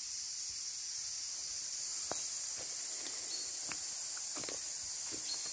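A steady high-pitched chorus of forest insects, with soft scattered footsteps on the forest floor.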